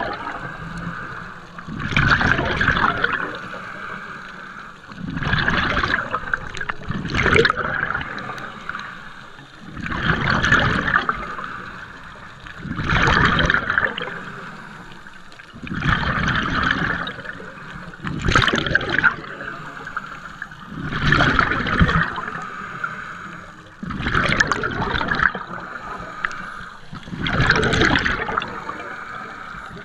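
Scuba diver breathing through a regulator underwater: a bubbling rush of exhaled air about every two to three seconds, with quieter hiss between breaths.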